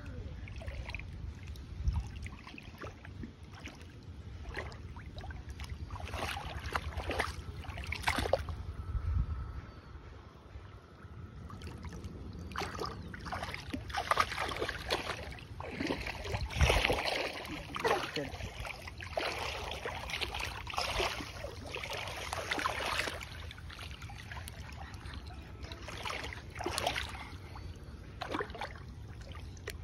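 Feet and hands splashing in shallow muddy water while wading after fish by hand, in irregular bursts that are busiest through the middle.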